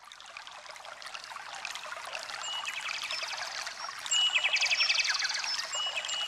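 Running water, like a babbling stream, with songbirds chirping and trilling over it, fading in from silence. The birds' trills grow louder about four seconds in.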